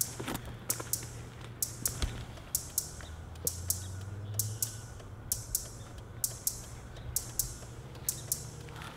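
Sharp, bright ticks in pairs, a double tick about once a second, over a low steady hum.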